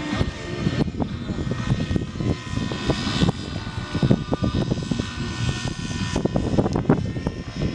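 Radio-controlled model helicopter flying overhead: uneven rotor and motor noise with a thin whine above it.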